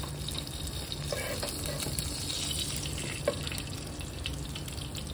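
Cumin seeds sizzling in hot oil in a nonstick pot, a steady fine crackle: the cumin tempering at the start of the masala.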